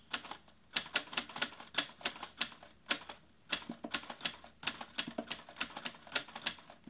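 Rapid, irregular key-like clicking, about three or four clicks a second, like typing on a typewriter.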